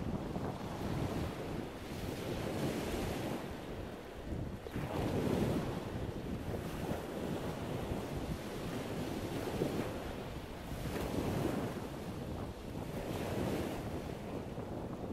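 Wind rumbling on the microphone, a rushing noise that swells and eases every couple of seconds.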